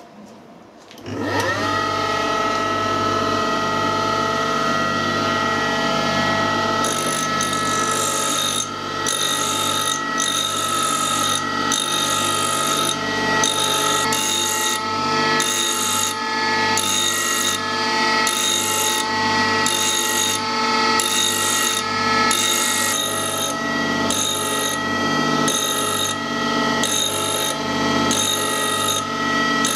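Small tool grinder switched on, its motor running up to speed in about a second and then running with a steady hum. From about seven seconds in, a high-speed-steel threading tool is passed back and forth across the grinding wheel, a grinding hiss that comes and goes about once a second as the 55-degree point is ground.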